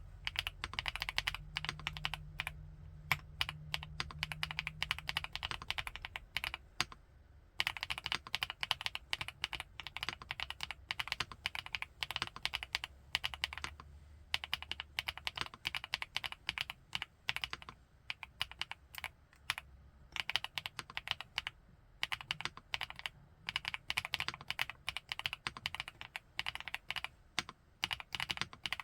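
Typing on an FL-ESPORTS Geo75 mechanical keyboard, a gasket-mounted 75% board with Kailh x Funkeys BCP (Black Cherry Pie) linear switches. The switches have nylon housings and long-pole stems. Keystrokes come in rapid runs with short pauses, the longest about seven seconds in.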